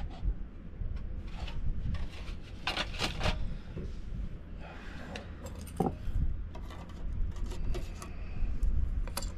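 Wind buffeting the microphone with a constant low rumble, over scattered scrapes and clicks of small metal stove parts being handled while a survival-tin stove is readied for relighting.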